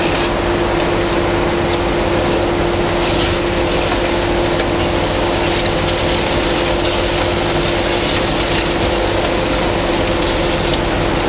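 Heavy demolition excavator's diesel engine running steadily under load, a constant drone with a steady hum tone, with faint crackles of breaking and falling masonry.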